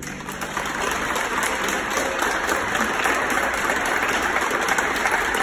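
Crowd applauding, swelling over the first second and then holding steady.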